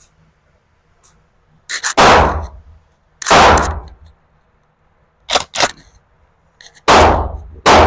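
12-gauge pump shotgun shots, loud, each with a long ringing tail: one about two seconds in, another a second and a half later, and a third near the end. A quick double clack comes midway, like a pump action being worked.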